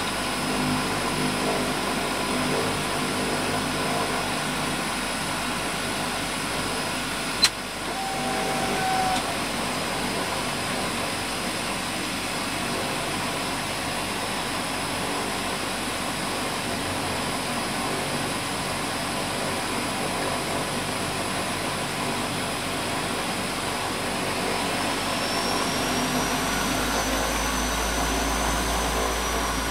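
Twin Otter's two PT6A turboprop engines running steadily, heard from inside the cabin: a dense drone with a high, steady turbine whine. A single sharp click sounds about seven seconds in, and near the end the whine rises in pitch as a low rumble builds.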